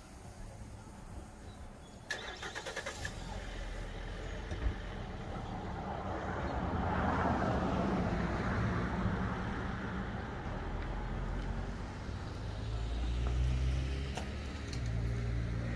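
Light highway traffic: a passing vehicle's tyre and engine noise swells to a peak about halfway through and fades. Near the end a nearby car's engine grows louder as it moves off, with a brief rapid clicking about two seconds in.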